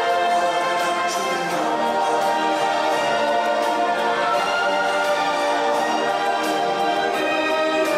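Orchestral show music with brass, sustained chords running on steadily as the stage show's soundtrack.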